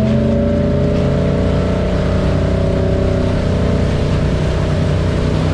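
Wake boat's inboard engine under throttle. It is pulling a rider on a paddleboard up to surf speed, and its pitch stops climbing and settles steady about half a second in. A constant rush of churning water and wind runs with it.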